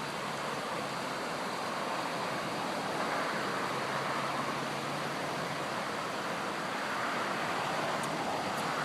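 Fast, three-foot-deep floodwater rushing through a desert wash in rapids: a steady, even rush of water, with a faint low hum underneath.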